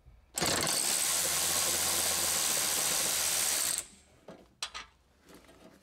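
Cordless electric ratchet running steadily for about three and a half seconds as it spins out an 11 mm hold-down bolt through a universal socket, then cutting off; a couple of light clicks follow as the loosened bolt is handled.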